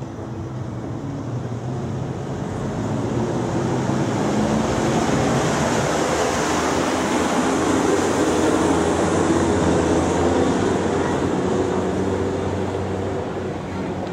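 Street traffic noise: a steady rumble of passing vehicles with an engine hum underneath. It swells over the first few seconds and eases off near the end.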